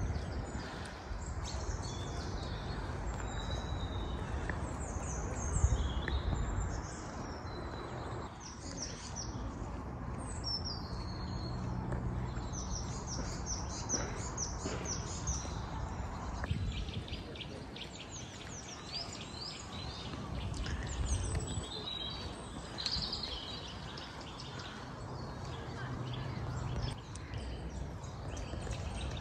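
Many small songbirds chirping and singing, short rapid calls following one another throughout, over a steady low rumble of wind on the microphone.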